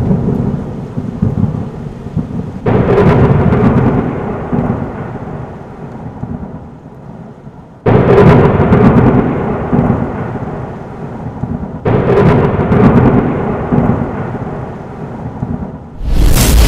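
A person plunging into a deep river pool, four times: each time a loud splash, then churning water that dies away over a few seconds. The last splash is the loudest.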